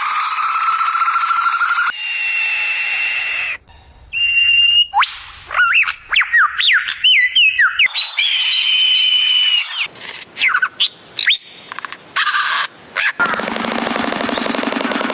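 A string of different animal calls, cut one straight after another: long, steady pitched calls, then quick whistled calls that swoop up and down, and a rougher, noisier call near the end.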